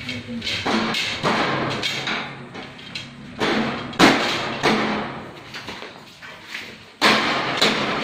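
White steel base shelf panel of a gondola shelving unit being knocked and pressed into its metal base frame by hand: several sharp metallic bangs, each ringing on briefly, the loudest about halfway through and again near the end.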